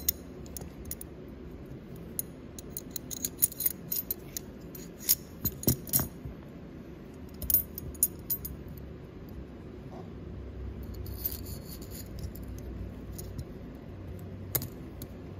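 Light metallic clicks and clinks of steel parts being handled: the SIG MPX op rod, its recoil spring guide rods and coil springs knock against each other. The clicks come in a quick irregular run through the first half, then fade to faint handling noise, with one more click near the end.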